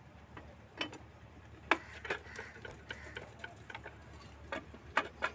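Irregular metallic clicks and taps of hand tools on engine parts as the mechanic works to remove the diesel engine's oil pump, with a couple of sharper clinks.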